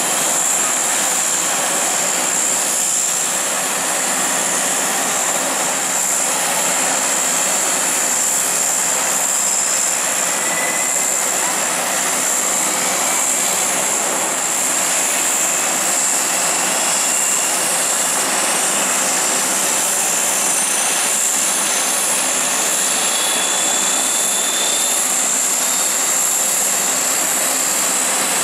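A Lockheed C-130 Hercules' four turboprop engines running steadily while the aircraft stands parked, propellers turning. A steady high turbine whine sits over the dense propeller and engine noise.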